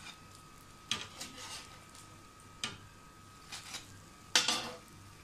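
Metal spatula knocking and scraping against a ceramic plate as fried cutlets are set down on it: a few separate sharp clinks, the loudest near the end.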